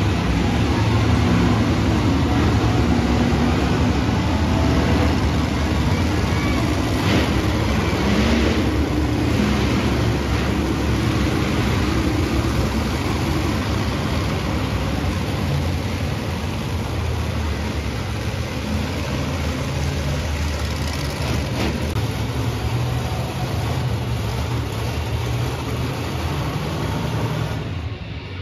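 Monster truck engine running loud and steady, with a constant low rumble and some rising and falling engine pitch in the first ten seconds. It cuts off abruptly near the end.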